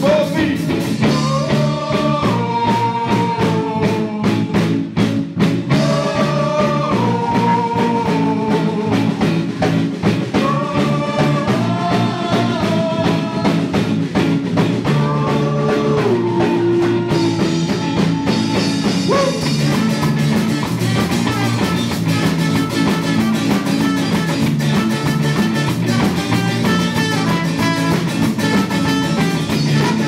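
Live rock band playing a song: a singer over electric guitar and drums for roughly the first half, then an instrumental passage of guitar and drums.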